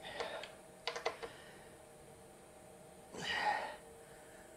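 Quiet room with a few faint, short clicks about a second in, then a breathy exhale, like a sigh, a little after three seconds.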